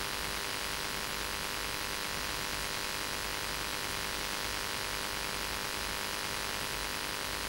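Steady hiss with a constant electrical hum underneath, unchanging throughout; no speech.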